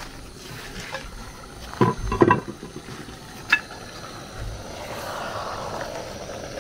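Aluminium pot lid clanking as it comes off the pot around two seconds in, a sharp knock a little later, then a wooden spatula stirring thick egusi soup in the pot, scraping with a soft sizzle over the gas flame.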